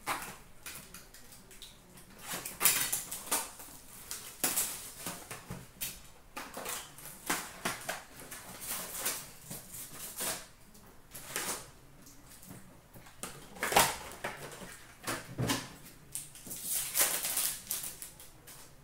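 Hands tearing open an Upper Deck hockey card box and its foil packs: short, irregular bursts of tearing, crinkling wrapper and rustling card stock, with a few sharp clicks.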